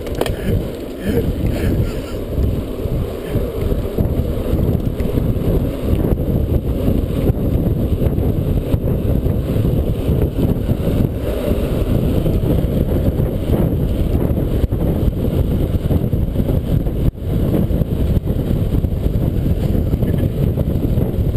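Wind buffeting the microphone of a camera on a mountain bike running fast down a tarmac lane: a loud, steady, low rumble that dips for a moment about seventeen seconds in.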